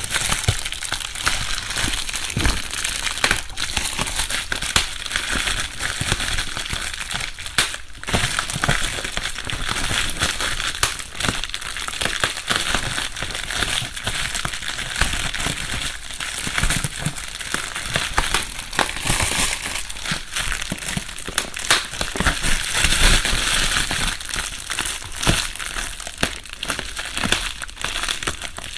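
Bubble wrap being crumpled and handled, a continuous rustling and crinkling full of small irregular crackles, in a binaural recording.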